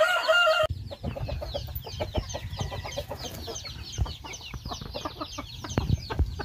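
Native chickens calling in a pen. There is a loud squawk in the first moment, then many short, high cheeps and clucks throughout, over the rustling and knocks of a bird being handled.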